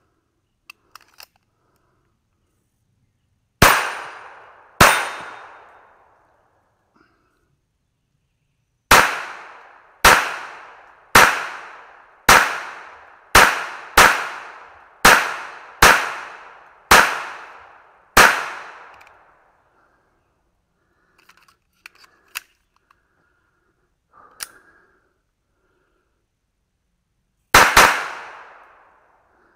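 .22 semi-automatic pistol firing single shots. Two shots come first, then after a pause a steady string of ten at about one a second, then a quick pair near the end. Light clicks of gun handling come early and in the gap before the last pair.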